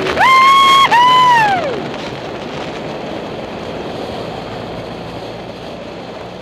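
Two long, high whooping cries from a person, the second sliding down in pitch, followed by a steady rush of wind and driving noise.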